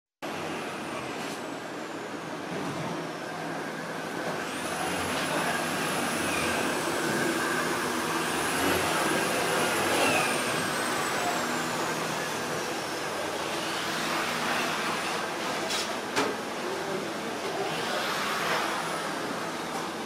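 Steady workshop machinery noise, with a thin high-pitched whine that rises, holds and slides back down several times, and a single sharp knock about sixteen seconds in.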